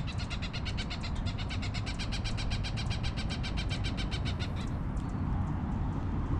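A nesting bird giving a rapid chattering alarm call, about ten short clicking notes a second, that stops about three-quarters of the way through. It is warning off an intruder near its nest.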